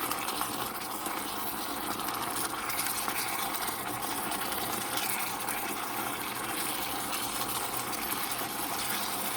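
Pot of food simmering on the stove, a steady hiss.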